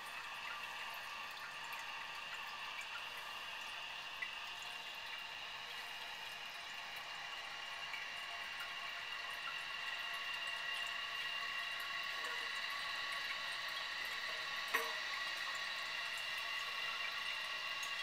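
Eljer Patriot toilet tank's fill valve hissing steadily as water refills the tank, with a faint whistle in the hiss that grows slightly louder. A couple of light clicks, the clearer one about fifteen seconds in.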